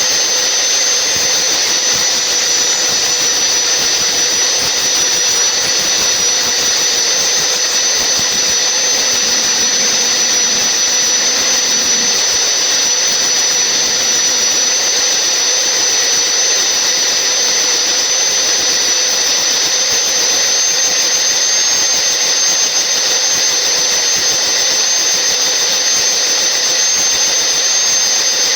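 Large log-sawing saw running with a loud, steady high-pitched whine over a broad hiss.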